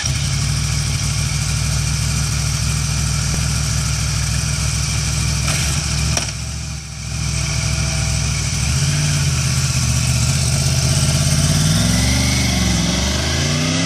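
2013 Yamaha R1's inline-four engine idling steadily, its exhaust without the A&R Motorsports baffle kit. Near the end the revs rise and fall twice as the bike pulls away.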